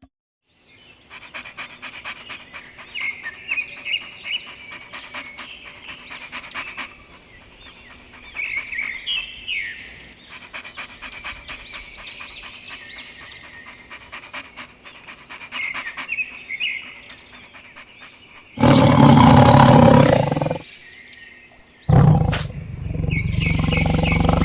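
Animal sound effects: a run of quick, high chirps like birdsong, then two loud roars of a big cat, the second lasting to the end.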